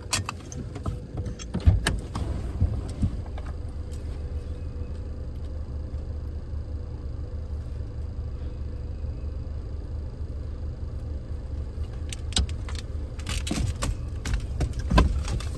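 Car engine idling steadily with the driver's door open. Clicks and metallic rattles of the seatbelt and door in the first few seconds, and near the end knocks and rattles of a wooden baby gate being pushed into the car.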